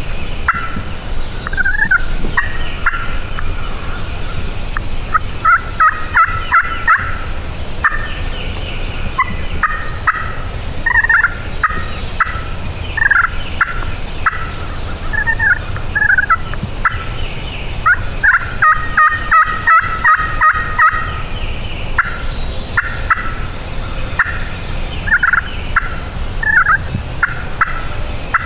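Wild turkeys gobbling and calling again and again, with dense, rapid runs of notes about 6 seconds in and again from about 18 to 21 seconds.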